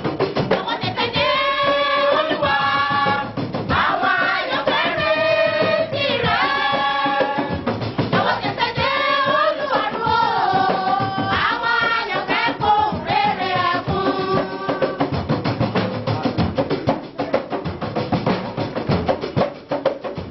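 Church choir singing together over a steady drum beat. The voices stop about three quarters of the way through, leaving the drums playing on.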